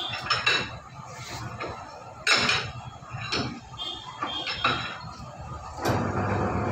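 Sharp metal clinks and clanks from the screw-down handle and rollers of a three-roll pipe bending machine being tightened onto a stainless steel pipe. About six seconds in, the machine's electric motor is switched on and runs with a steady hum as the rollers start turning.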